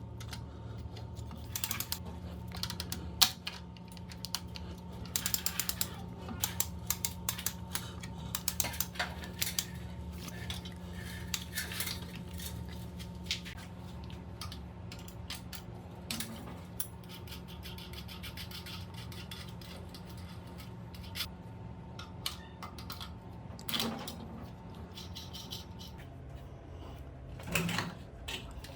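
Small metal tools and parts clinking and tapping in irregular bursts of clicks, over a steady low electrical hum. The hum drops in pitch about 26 seconds in.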